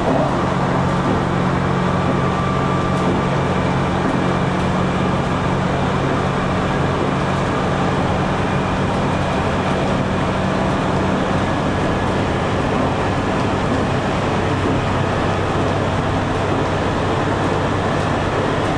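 Limited express Nanpu diesel railcar running through a tunnel: a steady diesel engine drone with wheel and rail noise. About two-thirds of the way through, the higher engine hum fades, leaving a lower drone.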